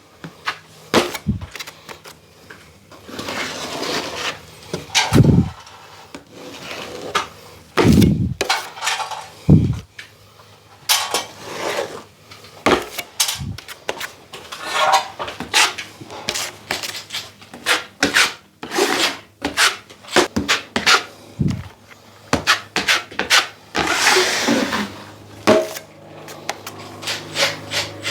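Steel drywall knives scraping and clacking irregularly, loading hot mud (setting joint compound) off a mud pan and spreading it over a ceiling patch.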